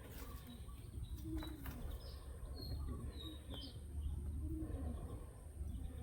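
Birds calling on a farm: several short high chirps and a few low gliding notes, over a steady low rumble.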